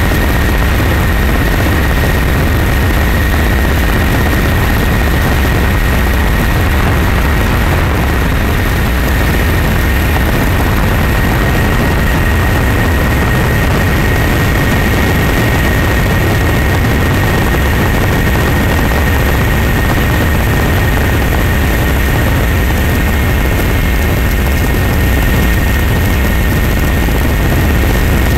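Helicopter in steady flight: an even, loud engine-and-rotor noise with a constant high whine above it.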